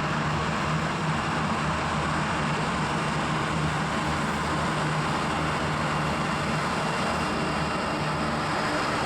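Airbus A330-200's Rolls-Royce Trent 700 jet engines at high takeoff power, a steady, even jet noise with a low hum and a faint high whine, unchanging throughout.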